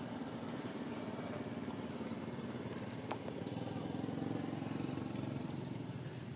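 An engine running steadily, swelling a little toward the middle and easing off near the end.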